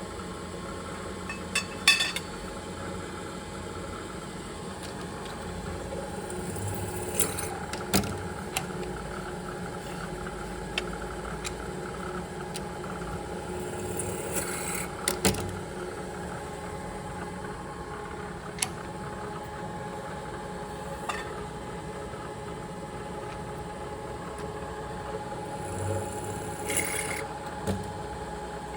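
Steady machine-shop hum with several sharp metal clicks and clanks, from the steel work stop and workpieces being set and moved against a mill vise. The clanks come every few seconds, the loudest about two seconds in and again around fifteen seconds in.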